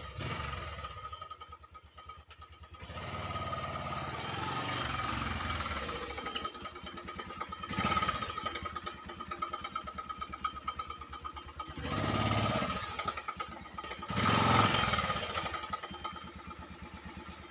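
Bajaj Pulsar 150 motorcycle's single-cylinder four-stroke engine running as the bike is ridden up slowly and stops, then idling with short revs about halfway through and twice more near the end.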